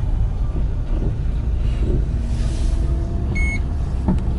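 Car engine running, heard from inside the cabin as the car sets off. About three and a half seconds in, a single short electronic beep sounds.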